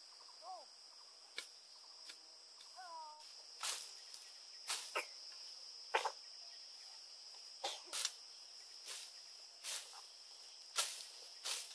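Machete slashing through grass and brush: about ten short, sharp strokes roughly a second apart, starting a few seconds in, over a steady high drone of insects. A few short vocal sounds come in the first three seconds.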